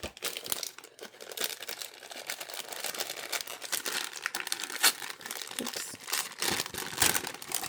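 Crinkly packaging being handled and rustled: a dense run of crackles, with a few sharper ones about five and seven seconds in.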